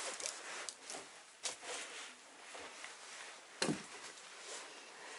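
Faint rustling over a steady hiss, with a few scattered soft knocks, the clearest one near the end.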